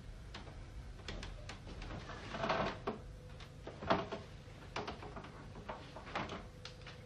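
A man's footsteps and his weight settling onto a bed: a series of soft knocks and rustles, loudest about two and a half and four seconds in.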